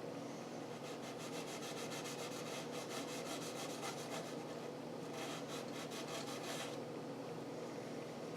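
A green abrasive scouring pad rubbed in quick back-and-forth strokes over a wooden fretboard. The steady scratchy rasp is light scrubbing that lifts white chrome-polish residue out of the wood without sanding into the finish.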